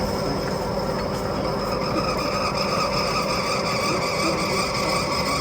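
Lathe running, a steady mechanical whine with several held tones over a rough hum.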